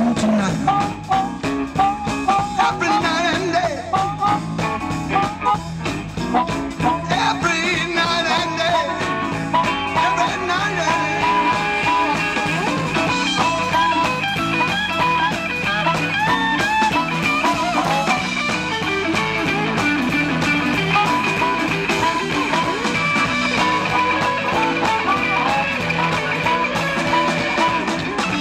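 Live blues band playing an instrumental break: amplified harmonica with long held, wavering notes over electric guitar, bass, drums and keyboard.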